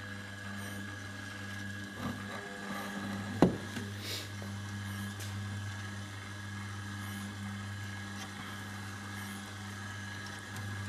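Boilie dough mixer's motor running steadily with a low hum, its fingers turning through eggs and meal in the steel pot. A single sharp knock about three and a half seconds in.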